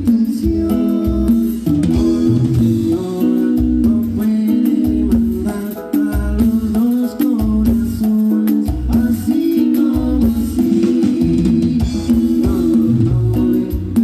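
Live cumbia band playing a song: electric guitar, bass guitar, drums and keyboards with a sung lead vocal, coming through the stage PA.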